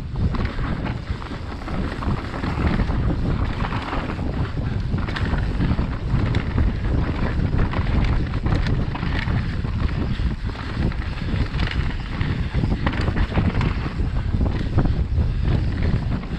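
Wind rushing over the camera microphone on a fast mountain-bike descent of a dirt forest trail, with tyres rumbling and the bike rattling over roots and stones.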